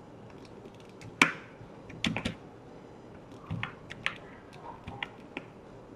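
Computer keyboard typing: a handful of irregular keystrokes and clicks, the loudest about a second in.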